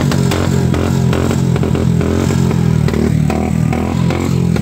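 Motorcycle engine running steadily, with many sharp pops and crackles from the exhaust: the misfire of the title.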